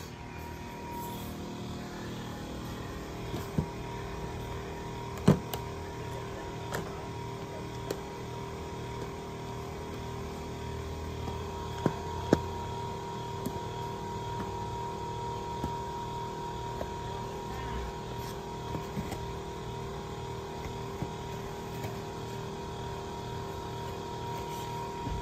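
Scattered sharp clicks and knocks of sale items being handled, among them plastic DVD cases in a cardboard box, over a steady mechanical hum with a couple of constant tones.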